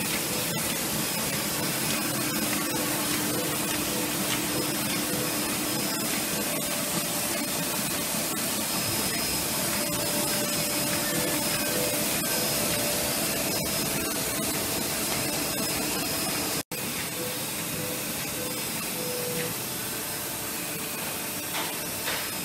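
Heidelberg Speedmaster SM 74 five-unit sheetfed offset press running, a steady mechanical noise with a strong hiss of air and a few faint steady tones. The sound cuts out for an instant about two-thirds of the way through.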